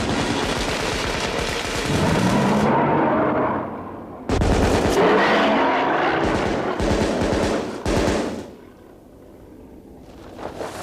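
Heavy rifles firing in a rapid, dense volley, in two long bursts. The first eases off around three seconds in; the second starts sharply about four seconds in and dies away after about eight seconds.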